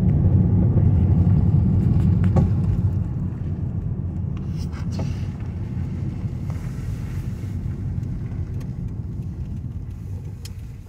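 Car driving, its engine and road noise heard as a low rumble inside the cabin. The rumble is louder for the first few seconds, then settles a little lower.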